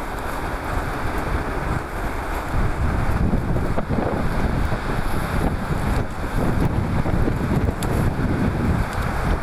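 Wind buffeting the microphone in gusts, a heavy low rumble that swells from about two seconds in.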